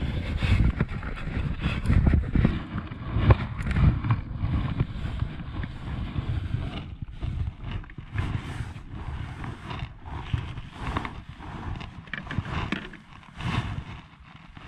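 Handling noise: a jacket sleeve rubbing and knocking against the camera microphone, with wind buffeting it. Irregular rustles and small knocks, louder for the first several seconds, then easing.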